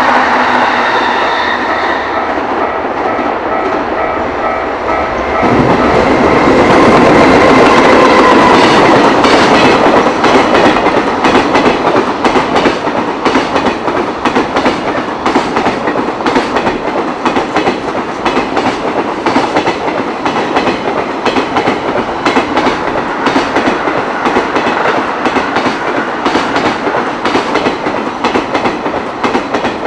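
A long freight train passing close by, its wagon wheels clattering over the rail joints in a fast, continuous run of clicks. The noise rises sharply about five seconds in as the train arrives.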